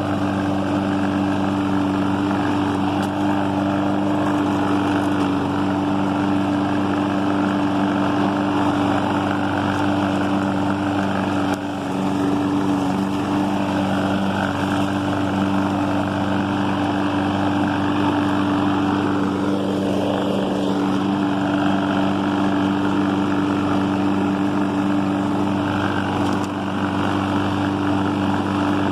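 Walk-behind gasoline lawn mower engine running steadily at a constant pitch while mowing, with a brief dip in level about twelve seconds in.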